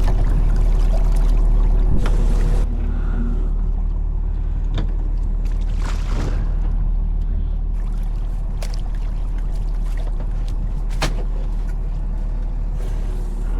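Fishing boat's engine running steadily as a low hum, dropping a little in level about two and a half seconds in, with scattered sharp knocks and clatter of gear on board.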